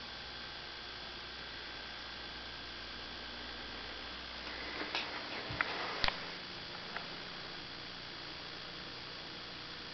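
Steady electrical mains hum from a switched-on vintage lighted dealer sign, with a few sharp clicks and knocks about five to six seconds in.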